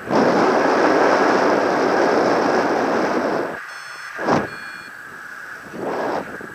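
Airflow rushing over the camera's microphone in paraglider flight, loud for about three and a half seconds and then easing to short gusts. Around the middle come two brief electronic beeps.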